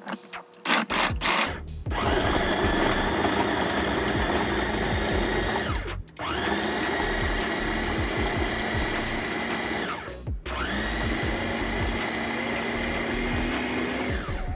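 Electric mini food chopper with a press-down motor head, chopping cilantro and green onion in a stainless-steel bowl. The motor runs in three pulses of about four seconds each, winding up at the start of each and dropping away at the end. A few clicks come just before the first pulse.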